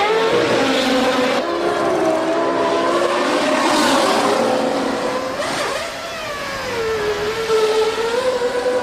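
1996 Formula One race car engines at high revs, their pitch rising and falling throughout as the cars accelerate, brake and pass, with more than one engine note heard at once.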